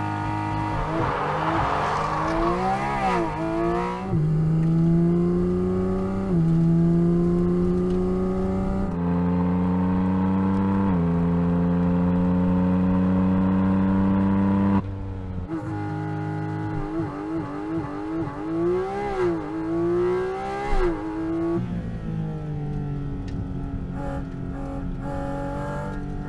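Porsche 718 Cayman GT4 RS's naturally aspirated flat-six pulling hard through the gears at full throttle, each upshift a brief dip in pitch before the note climbs again. About two-thirds of the way in it suddenly drops quieter, and the revs then rise and fall quickly with throttle blips through the corners.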